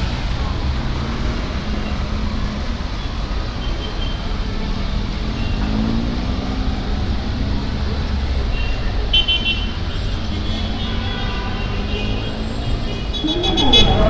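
Busy city-centre traffic of taxis and tuk-tuks: a steady engine rumble with short horn toots here and there, and loud overlapping honking starting near the end.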